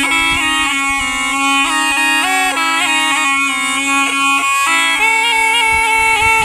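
Been (pungi), the snake charmer's gourd pipe, played continuously: a melody moving in steps up and down over a steady drone note. The drone drops out for a moment about four and a half seconds in.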